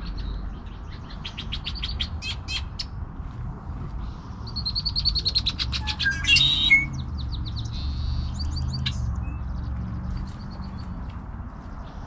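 Red-winged blackbirds singing and calling: repeated runs of rapid, trilled notes, loudest just past the middle, over a low steady rumble.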